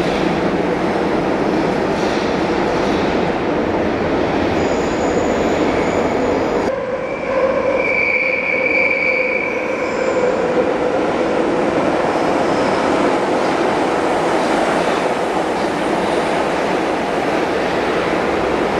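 Milan Metro trains running through the station: one pulling out, then, after a sudden change about seven seconds in, another approaching from the tunnel and rolling into the platform. A brief high squeal comes about eight seconds in.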